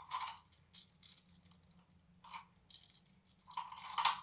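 Makeup brushes and other small items clattering and rustling on a tabletop as they are handled, in short irregular bursts, the loudest near the end.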